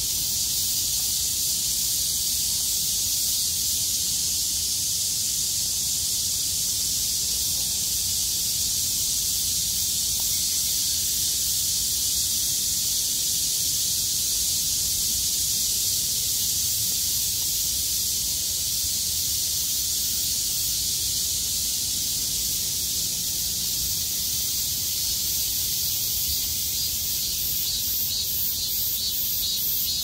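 A chorus of cicadas singing, a loud, steady, high-pitched buzzing hiss. Near the end a pulsing call of a few beats a second joins in.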